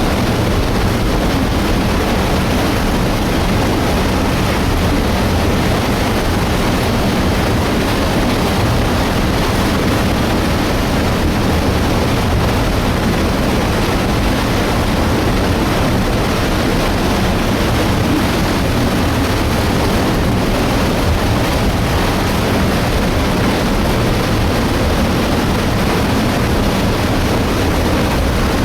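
Debris flow of mud, water and boulders rushing down a torrent channel: a loud, unbroken rush with heavy low-end energy.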